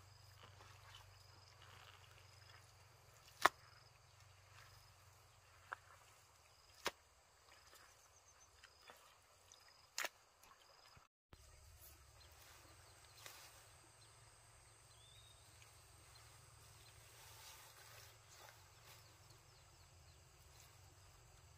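Hands digging through thick wet pond mud: faint squelching, with a few sharp, brief wet slaps in the first half, the loudest about three and a half seconds in.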